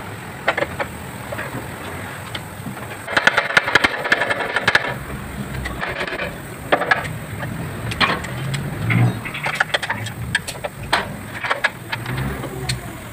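Irregular metallic clicks and knocks of hands and tools working on a car's suspension arm and its mounting bracket, with a dense run of rapid clicking about three to five seconds in.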